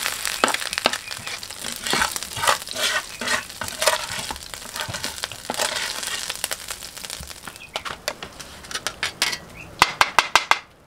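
Hot oil sizzling and crackling in a wok as fried shallots, garlic, chillies and small shrimp are scraped and scooped out with a perforated metal skimmer. Near the end, a quick run of sharp taps as the skimmer is knocked against a stone mortar.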